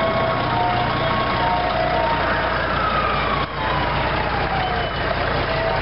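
A fire tanker's diesel engine runs as the truck passes, with siren tones over it. Short steady high and low tones come and go, and a long wail falls in pitch from about two to five seconds in.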